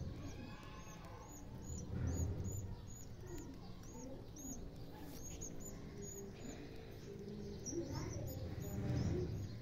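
Birds chirping, one of them repeating a short, high call about three times a second, with a few lower gliding calls among them. Low rumbles come and go, loudest about two seconds in and near the end.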